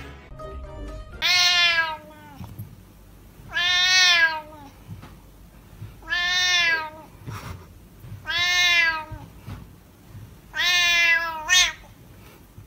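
A cat meowing five times in long, drawn-out calls, each rising and then falling in pitch, about every two and a half seconds.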